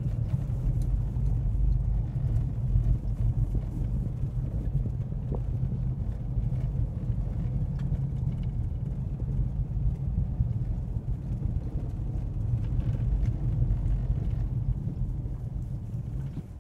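Low, steady rumble of a Mercedes CLA 200's engine and cabin noise, heard from inside the car as it moves slowly.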